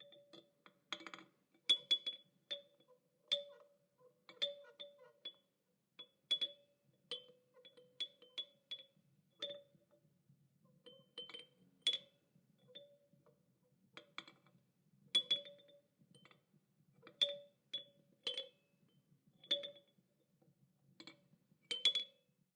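A child's toy chime clinking over and over at an uneven pace. Each strike rings briefly with a lower and a higher note.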